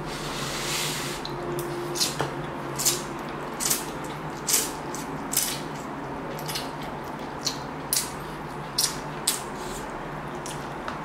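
A person eating instant ramen noodles: a long slurp of noodles at the start, then a run of short chewing mouth sounds, roughly one a second.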